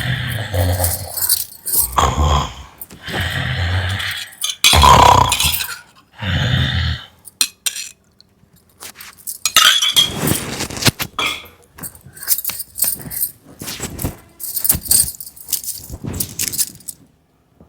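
Loud, exaggerated human snoring, a rough rumbling snore every second or two. About eight seconds in it gives way to an irregular run of sharp clicks, clinks and knocks.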